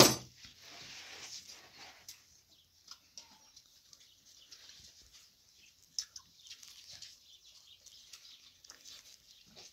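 People biting and chewing corn on the cob, with scattered small crunching clicks. A sharp knock at the very start.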